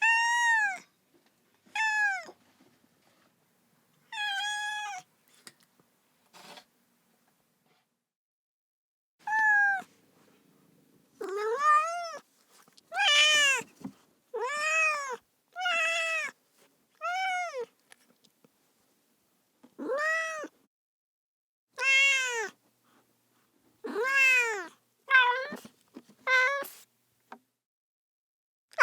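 Domestic cat meowing: about fourteen separate meows, each rising and then falling in pitch, with a pause of several seconds before the second, faster run of calls. The later meows are lower-pitched than the first few.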